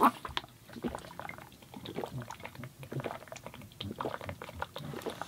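A person drinking, with a string of irregular short gulping and liquid sounds.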